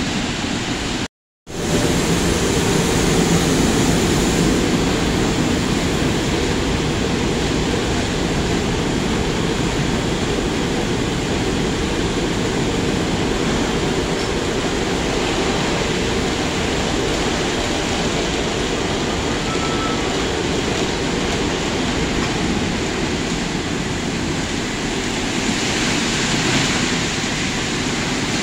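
Automatic tunnel car wash running: water spraying and spinning brushes working over a car on the conveyor, a steady rushing hiss over a low rumble. The sound cuts out for a moment about a second in.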